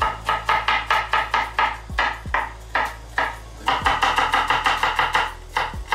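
Chef's knife rapidly chopping garlic on a wooden chopping board, a quick even run of knocks, over background music with a steady beat.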